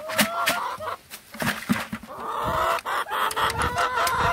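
Chickens clucking in short pitched calls, then from about two seconds in a loud, drawn-out harsh squawking call.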